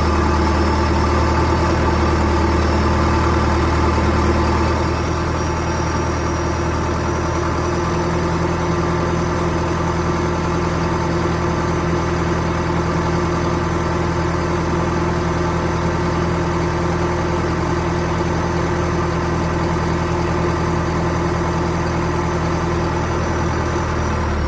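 Heavy engine idling steadily as the sound effect for an animated bulldozer, a low, even rumble. About five seconds in it gets slightly quieter and its low tone shifts, then it holds steady again.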